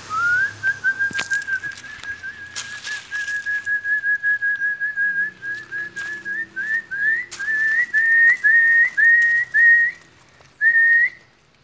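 A person whistling at a dog to catch its attention: a long run of quick short notes on one pitch that rises slightly, then breaks into separate upward-flicking chirps in the second half, stopping shortly before the end.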